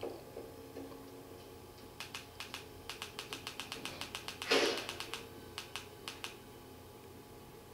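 Remote-control buttons clicking in quick repeated presses, about six a second in two runs, stepping down a list on a satellite receiver's menu, with one brief louder rustle between the runs.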